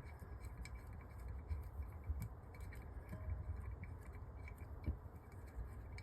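Faint, scattered clicks and taps of small carburettor parts and hand tools being handled, over a low steady rumble.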